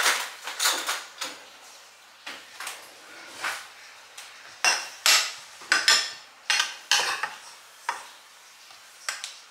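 Metal cutlery and kitchen utensils clinking and clattering as they are rummaged through and picked up: a string of separate sharp clinks and knocks, some in quick clusters.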